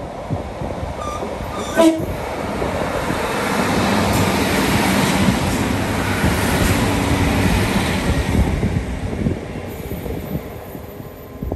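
A passenger train passing close by, its rumble building to a peak about halfway through and then fading. A brief horn toot sounds about two seconds in.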